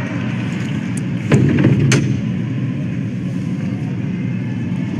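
Crowd noise filling a college wrestling arena, a steady rumble of many voices. About a second and a half in there is a short louder burst with a couple of sharp cracks.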